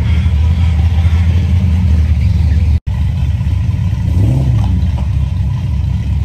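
Car engine running with a deep, steady rumble, with a brief rise and fall in pitch a little past the middle. The sound cuts out for an instant about three seconds in.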